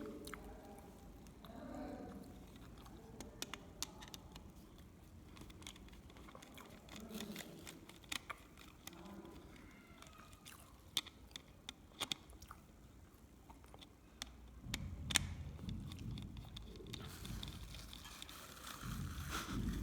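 Scattered sharp clicks and taps over a faint background murmur, with a low rumble coming in about three-quarters of the way through.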